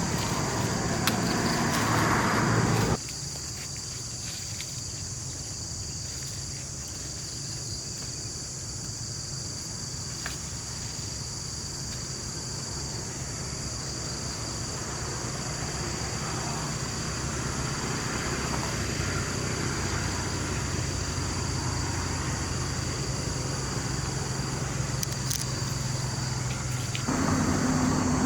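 Insects buzzing steadily at a constant high pitch over a low, even rumble, with the background shifting abruptly about three seconds in and again near the end.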